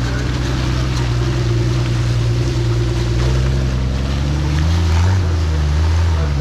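Jeep's engine running under load as it crawls through deep mud, its pitch rising as it revs up about four and a half seconds in.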